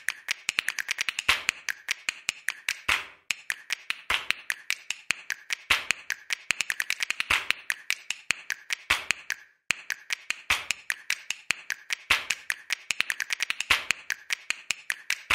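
Dense, rapid clicking and tapping in runs, broken by short pauses every couple of seconds, cutting off suddenly at the end. This is an added snap-and-tap track, not the car's own sound.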